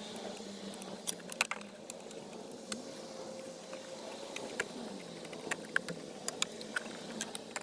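Scattered sharp clicks and small scrapes of a screwdriver backing out the screws that hold a car's radio unit in the dashboard, with metal tool tapping plastic trim, over a steady background hum.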